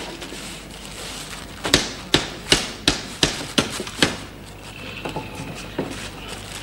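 Hammering: about eight sharp, evenly spaced blows, roughly three a second, which stop about four seconds in, followed by a few faint clicks.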